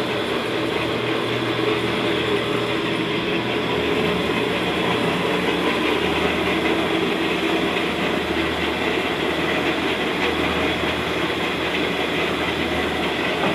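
Motorised stirrer of a cassava flour toasting pan running steadily: a belt and pulley drive turns paddle arms through the flour with a continuous mechanical hum.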